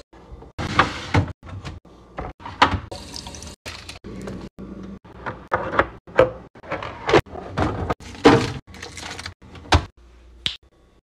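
Produce and eggs being set into clear plastic fridge organizer bins: a string of short knocks and clatters on hard plastic, chopped into quick bursts with sudden silent gaps between them.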